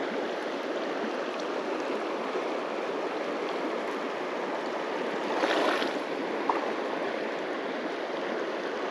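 A shallow creek run flowing steadily over stones, with a brief louder splash-like swell about two-thirds of the way through.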